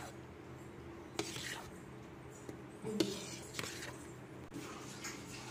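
Metal spoon stirring powdered sugar into thick milk in a steel bowl: faint scraping with a few light clinks of spoon on bowl, the loudest about three seconds in.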